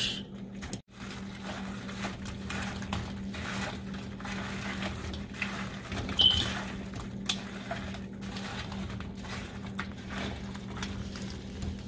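Silicone spatula stirring and folding fried chicken wings through thick sauce in a wok: soft, irregular wet scrapes and pats over a steady low hum, with a brief high squeak about six seconds in.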